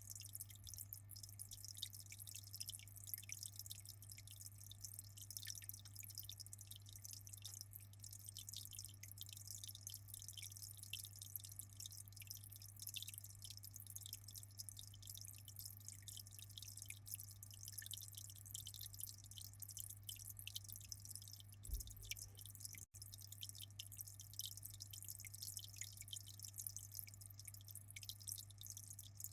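Aquarium water trickling and splashing: a dense, continuous patter of small drips over a steady low hum.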